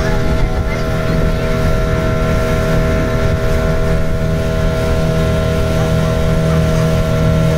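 Motorboat engine running at a steady pitch while the boat cruises, a constant droning hum with no change in speed.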